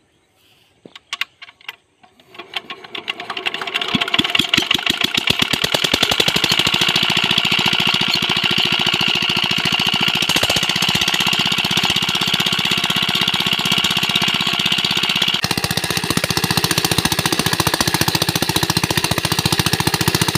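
Small single-cylinder diesel engine driving a well water pump: a few knocks, then it catches about two seconds in, picks up speed and runs with a fast, steady knock. Near the end, water gushing from the pump outlet adds a hiss to the engine's running.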